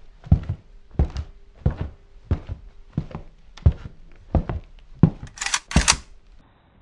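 Intro sound effects: a steady series of heavy thuds, about three every two seconds, over a faint steady hum, ending in two short hissing bursts near the end.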